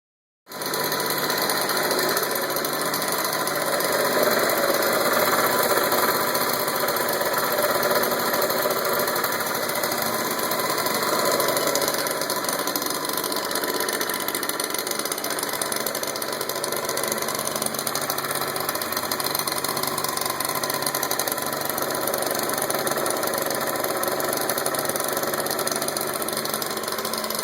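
Motor scooter engine running steadily with a rumble noise.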